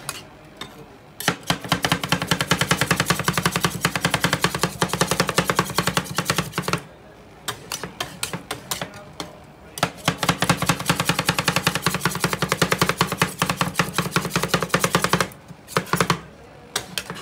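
Two metal spatulas chopping Oreo cookies into ice cream base on the frozen steel pan of a rolled-ice-cream machine: rapid metal clacking against the pan in two long runs of several seconds each, with a short pause between and a few scattered strikes near the start and end.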